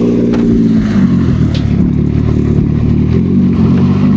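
Jon boat's outboard motor running under way, pushing the boat along. Its engine note shifts about a second in and again about three seconds in.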